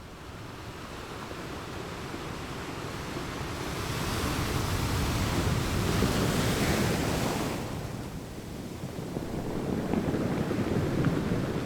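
Sea waves washing and surging, swelling to a loud rush of spray in the middle and falling back, with wind rumbling on the microphone.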